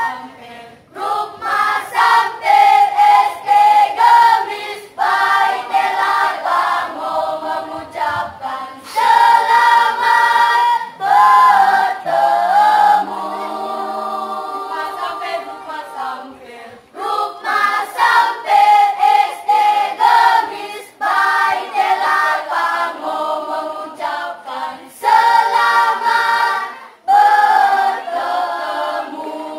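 Children's choir singing masamper, the Sangihe islands' traditional unaccompanied group song, in short phrases broken by brief pauses.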